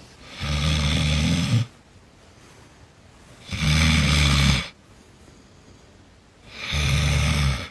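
Snoring: three loud snores, each lasting about a second, spaced roughly three seconds apart.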